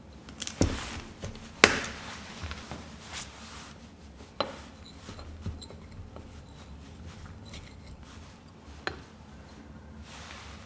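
Small glass bowl knocking on a stainless steel counter and a rubber spatula clinking and scraping inside it as the spatula is oiled. The sound is a handful of sharp clicks, the loudest about a second and a half in, with soft rubbing between them.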